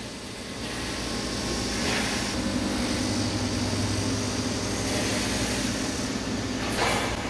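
Steady machine-shop background noise: a constant low hum of machinery running, with a brief rushing swell about two seconds in and again near the end.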